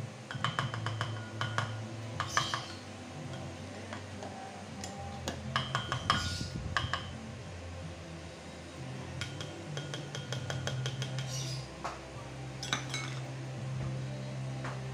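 Clinks, taps and scrapes of a measuring cup and utensils against ceramic bowls, coming in several short clusters with brief ringing.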